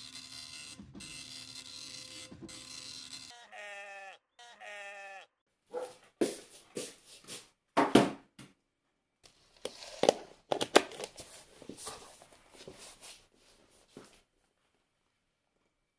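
A steady hiss for about three seconds, then two short pitched calls a second apart. After them come irregular clicks and knocks of a router and its power adapter cable being handled, loudest about eight and ten and a half seconds in.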